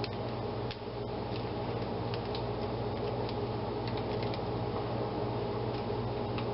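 A steady electrical or fan-like hum, with a scatter of faint light clicks and taps from garlic cloves being peeled by hand.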